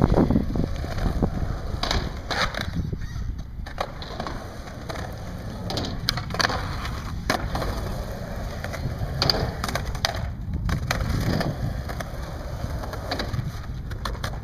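Skateboard wheels rolling on a concrete skatepark, a steady low rumble, with sharp clacks and knocks of the board scattered through, about a dozen in all.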